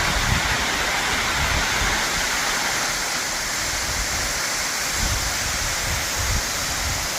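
Waterfall rushing: a steady, even wash of falling water with an uneven low rumble underneath.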